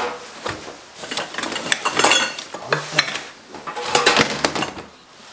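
Rummaging in a plastic storage crate: the lid and the gear inside, including metal gas canisters, knock and clatter in an irregular series of clicks as a bag of tent poles is pulled out.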